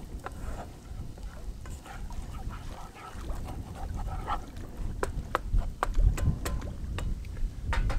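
A wooden spoon stirring garlic frying in butter in a Trangia sauté pan, with several sharp knocks of the spoon against the pan in the second half. A low wind rumble on the microphone runs underneath.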